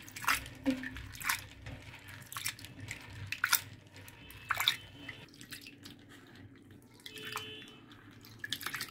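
Hands swishing and rubbing split toor dal (pigeon peas) in a bowl of water to wash it: irregular small splashes and drips. They come thickly at first and grow sparser and quieter after about five seconds.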